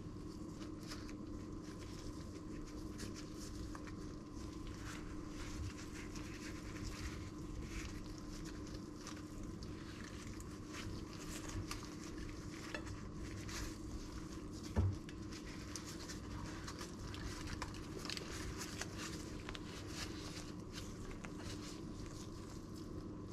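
Gloved hands handling and rolling a flatbread wrap: soft rustling and crinkling with scattered light taps, and one louder thump about fifteen seconds in, over a steady low hum.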